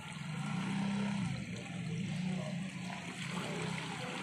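Low, steady drone of a fishing boat's engine running, swelling and easing slightly every second or so.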